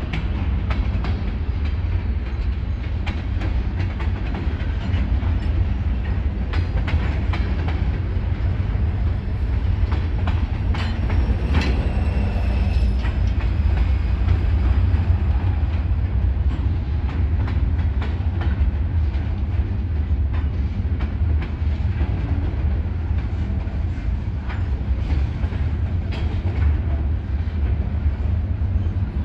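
Freight train of covered hoppers, boxcars and gondolas rolling past: a steady low rumble with the wheels clicking over the rail joints.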